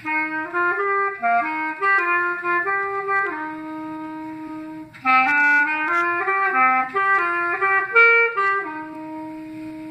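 Solo clarinet playing a melody in two phrases, each ending on a long held note, with a short break for breath about five seconds in.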